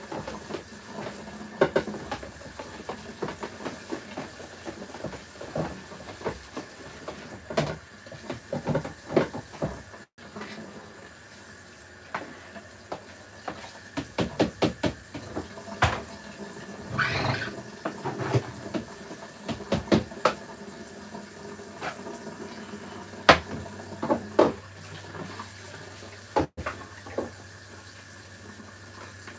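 Dishes being washed by hand in a kitchen sink: tap water running while plates and bowls clink and clatter against each other and the sink, with many short knocks scattered throughout.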